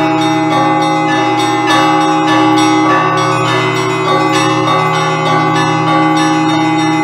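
Russian Orthodox church bells rung in an improvised festive peal: rapid rhythmic strikes on the smaller bells over the steady, sustained hum of the larger bells.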